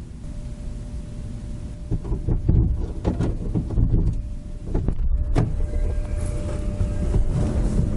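AE86's 5-valve 4A-G engine on Weber carburettors, running with a loud exhaust and rising in several short, loud surges from about two seconds in, then holding loud.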